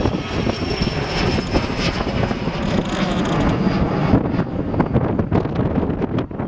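Aircraft engine noise from a fixed-wing aircraft in flight, with a high steady whine that fades out about four seconds in, over a rough low rumble of wind on the microphone.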